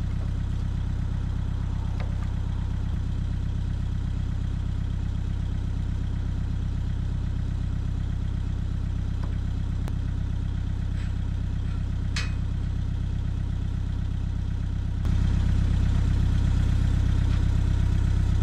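Diesel engine of a Cat 307SSR mini excavator running steadily at idle with an even low pulsing, growing louder about fifteen seconds in as it picks up speed or load.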